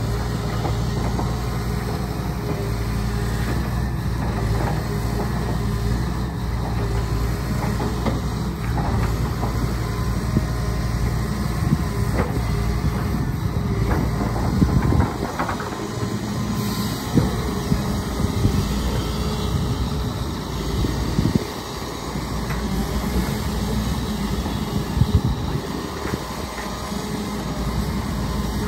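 Komatsu crawler excavator's diesel engine running steadily while it digs. The engine note dips and picks up again a couple of times, with occasional knocks from the working machine.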